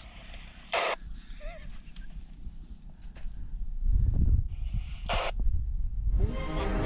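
An insect trilling steadily in even, rapid high-pitched pulses. Under it a low rumble, likely wind on the microphone, grows louder from about four seconds in, and music starts near the end.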